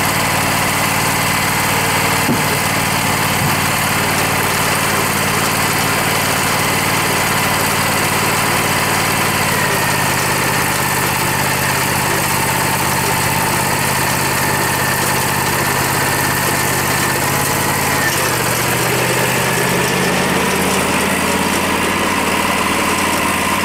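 Wood-Mizer LT40 portable band sawmill's engine running steadily. Its note steps down about ten seconds in and again a few seconds before the end, then rises a little.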